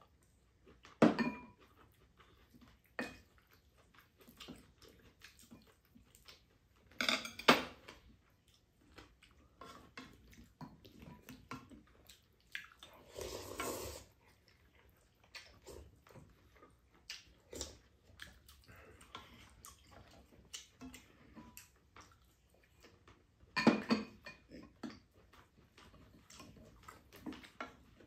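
Chopsticks and spoons clinking and scraping against ceramic bowls and a metal pan during a meal: scattered light knocks and clicks, with louder clacks about a second in, around seven seconds and near twenty-four seconds.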